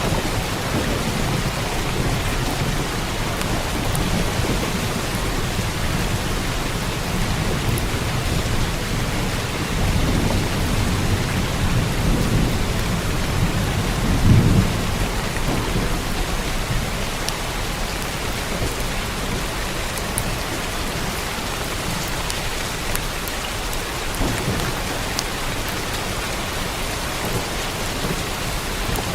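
Steady rain falling on a roof, with thunder rumbling low from about ten seconds in, loudest around the middle.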